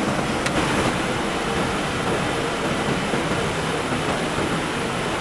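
Steady machinery noise, an even mechanical din with a faint steady tone in it and a single small click about half a second in.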